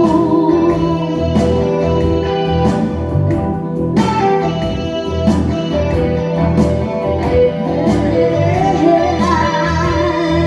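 Live rock band music: a steady drum beat with bass and a lead guitar line, the singer's voice carried over it.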